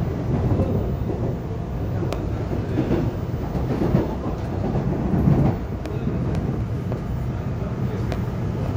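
Korail Line 4 electric commuter train heard from inside the car while running: a steady rumble of wheels on rail, with a few sharp clicks as the wheels cross rail joints and points.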